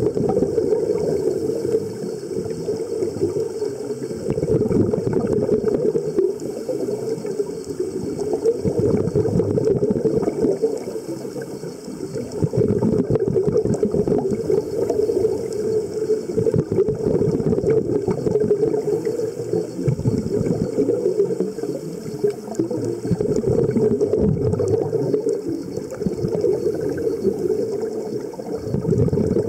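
Scuba regulator exhaust bubbles gurgling and crackling, heard underwater. The sound swells and fades in waves every few seconds with the divers' breathing.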